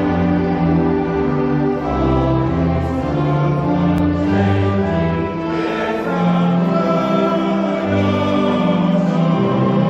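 Choral music: a choir singing sustained chords with instrumental accompaniment over a moving bass line.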